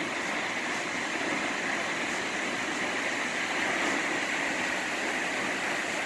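Vernal Fall, a large waterfall, rushing steadily in an even, unbroken hiss.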